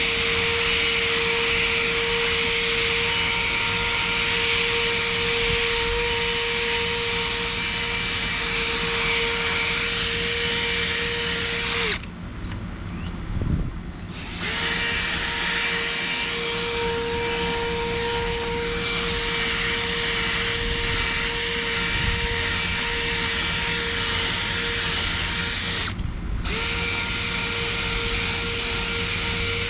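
A small electric motor running with a steady high whine and hiss. It stops about twelve seconds in, starts again two seconds later, and cuts out briefly once more near the end.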